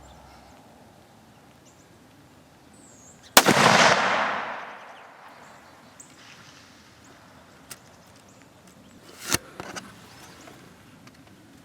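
A single .243 rifle shot about three and a half seconds in, its report rolling away over a second or so. A faint click follows a few seconds later, then a sharper click near the end.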